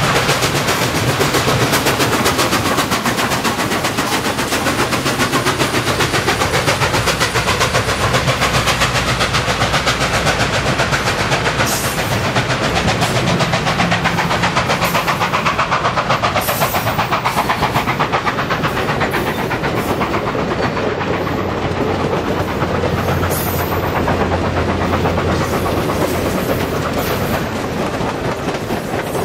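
Nickel Plate Road 765, a 2-8-4 Berkshire steam locomotive, working past with rapid, even exhaust chuffs, then its passenger cars rolling by with a clickety-clack of wheels over the rail joints.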